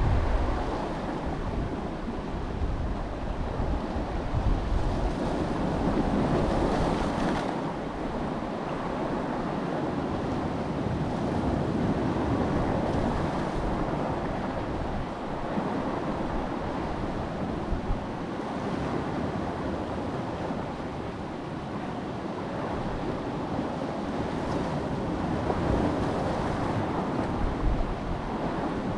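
Strong wind buffeting the microphone in uneven gusts, a steady rushing noise with low rumbling that swells and fades.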